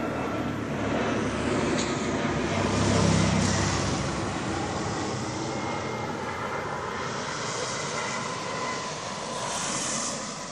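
Helicopter flying overhead, its rotor beating rapidly over the turbine noise; it is loudest about three seconds in, then slowly fades as it flies off.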